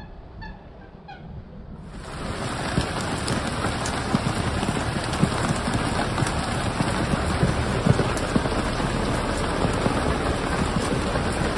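Heavy rain falling on a sailing yacht: a dense, steady hiss of drops with many small scattered hits, starting abruptly about two seconds in. Before it, a faint chirp repeats about twice a second.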